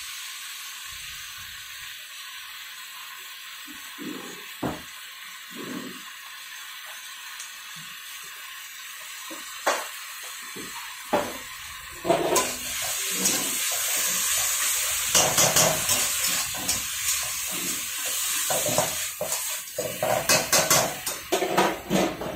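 Chicken chilli sizzling in an iron wok over a gas burner, with a metal spatula stirring and scraping against the pan. The odd clink comes first; from about halfway the sizzle grows louder and the spatula strikes come thick and fast.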